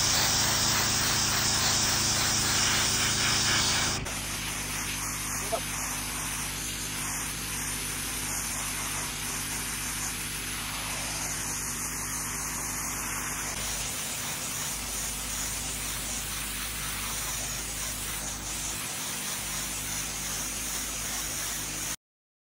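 A 4,000 PSI pressure washer running: its motor keeps a steady tone under the constant hiss of the high-pressure water jet spraying the driveway. The level steps down about four seconds in and the sound cuts off suddenly just before the end.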